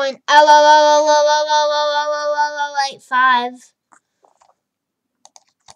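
A child's voice holding one long, steady sung note for about two and a half seconds, ending with a slight drop in pitch; a few faint clicks follow near the end.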